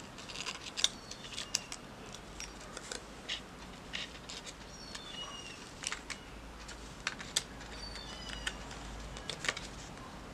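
Paper rustling and crinkling in the hands, with scattered light clicks, as a small pin is pushed through layered paper cut-out puppet parts to join them.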